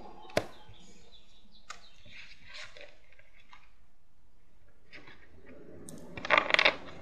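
Cards being handled and laid on a tabletop: a sharp tap about half a second in, faint rustles and small ticks, then a short clattering flurry of quick card slaps near the end.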